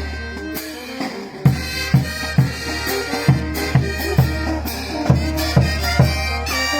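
Band music: wind instruments playing a melody over a steady bass drum beat. The drum drops out briefly, then comes back in about a second and a half in at roughly two beats a second.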